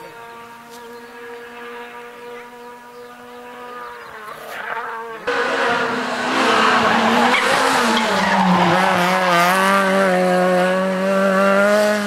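Renault Clio rally car engine at speed on a rally stage: a faint, steady engine note from far off, then after a cut about five seconds in, the car passing close and loud, its engine pitch wavering and dropping about eight seconds in, with tyre noise.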